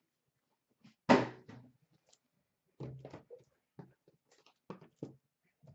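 Sealed cardboard hobby boxes being set down and stacked, knocking against each other and a glass counter. One loud thunk comes about a second in, followed by a string of lighter knocks.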